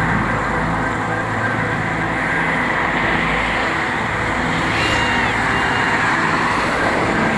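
Road traffic: cars driving past, a steady rush of engine and tyre noise.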